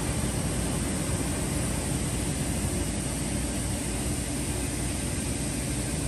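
Centroid A560XL CNC machining center boring out a cylinder of an aluminum Ford Coyote V8 block: the spindle runs steadily under a constant hiss of flood coolant spraying onto the work.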